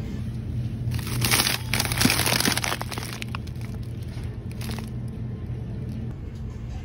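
Plastic bag of frozen Kung Pao chicken crinkling and crackling as it is handled, loudest for about two seconds starting a second in, then a few scattered crackles, over a steady low hum.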